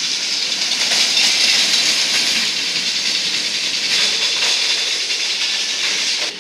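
Hopkins looping roller coaster train running along its tubular steel track: a steady, loud hiss of the wheels on the rails.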